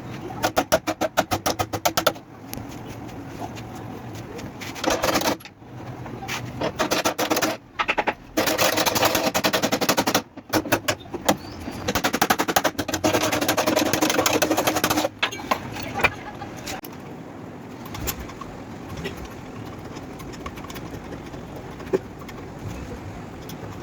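Bursts of rapid, evenly spaced knocking on car-body sheet metal during dent repair, several runs over the first fifteen seconds. After that it is quieter, with a single sharp click now and then.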